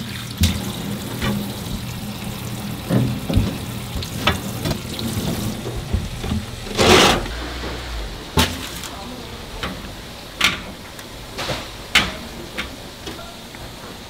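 Food being prepared at a street-food stall: scattered clinks and knocks of utensils against cookware over a steady hiss, with one short loud burst of hiss about seven seconds in.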